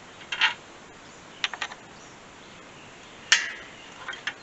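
Short clicks and knocks of parts being handled while a replacement AC condenser is fitted into a pickup's front end: a few quick clicks early, then one sharp, loud clack with a brief ring a little past three seconds in.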